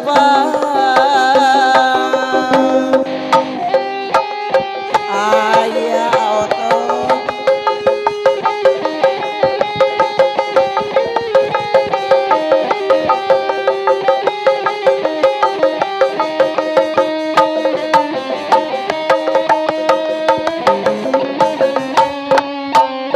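Sundanese benjang procession music: drums and a melody instrument. A wavering melody leads for the first few seconds, then a dense, steady drum beat runs under held melody notes.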